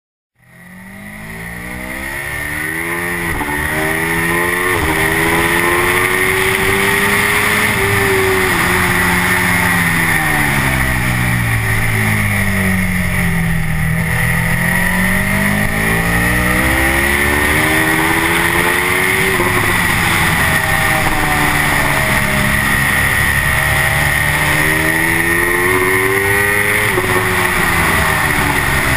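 Aprilia RSV4 Factory's V4 engine ridden hard on track, heard from an onboard camera, fading in over the first few seconds. It revs up through the gears with short steps at each upshift, drops in pitch under braking and downshifts around the middle, then climbs hard again and dips once more near the end. Steady wind noise runs underneath.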